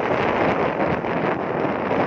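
Steady rush of wind over the phone's microphone on a moving motorcycle, with road noise underneath.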